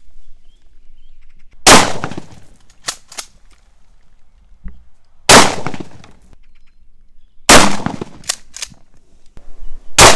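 Four shots from a Mossberg 590 Shockwave 12-gauge pump shotgun, spaced two to four seconds apart. Between shots there are short paired clacks of the pump being racked.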